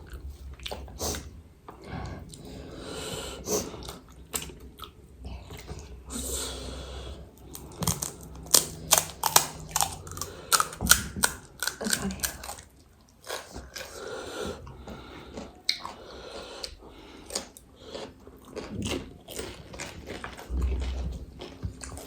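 Close-up chewing and crunching of crispy Nepali street snacks, chatpate and pani puri, with many sharp crackles as the crisp pieces break. The crackles come thickest about a third of the way in.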